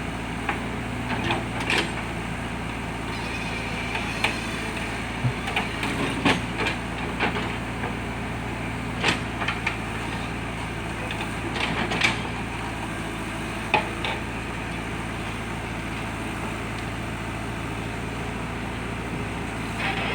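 JCB backhoe loader's diesel engine running steadily, with irregular clanks and knocks from the machine at work.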